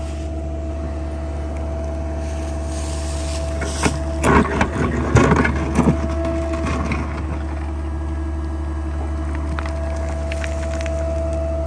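Small Sany excavator's engine running steadily, with a loud burst of scraping and cracking from about four to six seconds in as the steel bucket digs into soil and roots.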